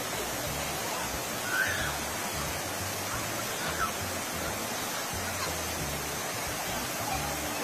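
Steady rush of river rapids, with short faint cries from people about one and a half and four seconds in.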